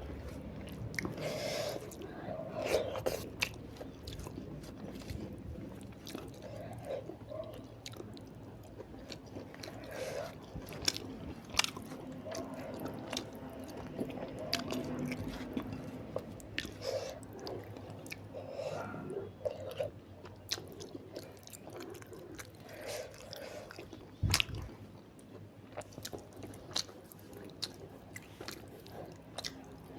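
Close-miked chewing and biting of a rice-and-curry meal: wet mouth smacks and clicks with occasional crisp crunches, and one heavier low thump about twenty-four seconds in.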